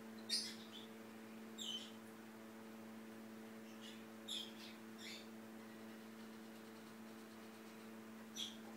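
Bengal cat's tongue licking a Siamese cat's head fur: about five short, soft wet lick sounds a second or more apart, over a steady electrical hum.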